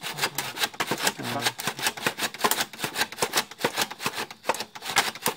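Hand saw cutting through a bamboo pole in quick, short back-and-forth strokes, several a second, the blade rasping against the hard bamboo.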